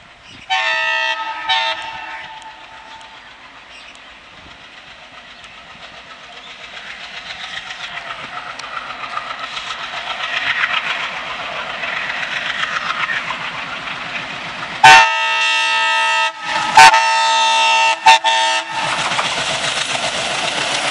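Alco diesel locomotive sounding two short blasts on its multi-tone horn, then its engine and wheel clatter growing steadily louder as it approaches with a passenger train. Near the end it sounds three loud horn blasts, the first the longest, and passes close with loud wheel and engine noise.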